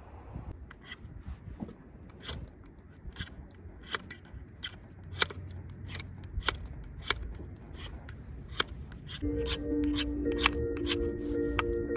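Wood fire crackling, with irregular sharp pops and snaps over a low rumble. Gentle music comes in about nine seconds in.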